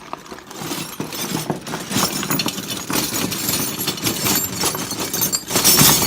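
Loose metal tools, likely sockets, clattering and clinking as they are rummaged through, loudest near the end.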